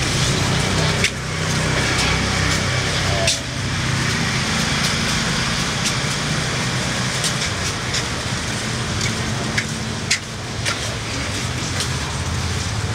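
Street traffic: motor vehicle engines running close by, with a steady low engine hum over the general road noise. A few sharp clicks stand out, about a second in, about three seconds in and near the ten-second mark.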